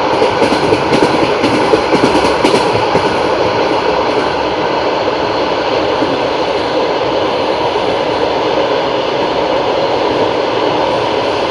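Passenger train wheels on the rails: a rhythmic clatter over rail joints in the first few seconds, settling into a steady rolling rumble.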